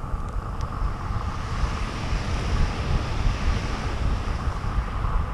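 Wind buffeting the microphone in an uneven low rumble, over the steady hiss of surf on a shingle beach.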